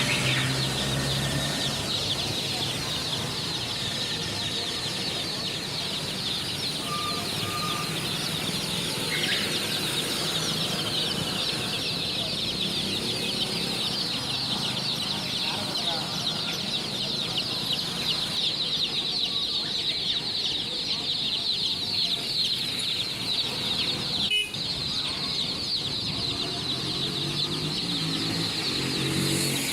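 A large brood of poultry chicks peeping together in a dense, continuous high-pitched chorus, with a momentary break about 24 seconds in.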